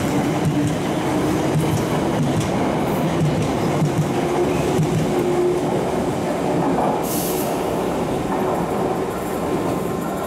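London Underground Piccadilly line 1973 Stock train pulling out and accelerating away, its traction motors whining in a slowly rising pitch over wheel-on-rail rumble. A short hiss comes about seven seconds in.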